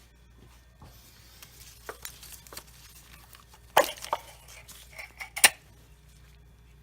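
Metal tools or parts clinking: a run of light clicks and taps with two sharper clanks, about four and five and a half seconds in.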